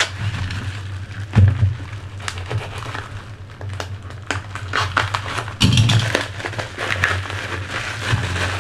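Packaging being handled and opened: rustling and scraping with scattered clicks, and two heavier knocks, one about a second and a half in and one near six seconds, over a steady low hum.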